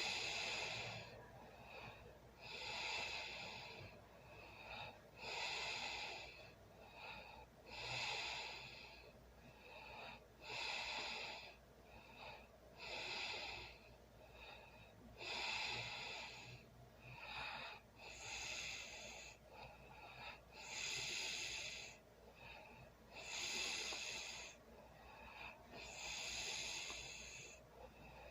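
A sleeping person snoring and breathing heavily: a loud, breathy breath about every two and a half seconds, with a softer one in between.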